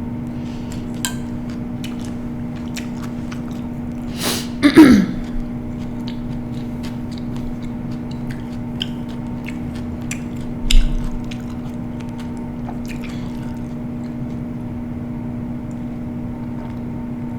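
Close-up mukbang eating sounds: wet chewing and scattered small clicks over a steady low hum. About five seconds in comes a louder wet sound with a falling voiced tone, and near eleven seconds a single thud.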